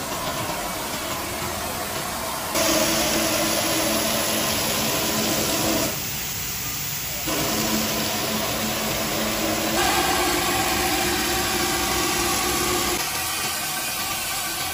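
Five-axis gantry CNC machining center's spindle and cutter milling an expanded polystyrene foam block: a steady cutting hiss with the spindle's whine over it, stepping louder and softer a few times.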